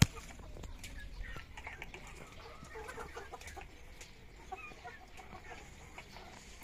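A sharp click at the very start, then faint scattered clucking calls of birds.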